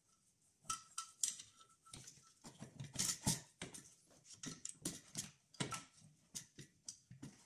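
Irregular metallic clicks, taps and rustling of hands fitting bolts and parts around the EGR valve of a diesel engine, starting about a second in.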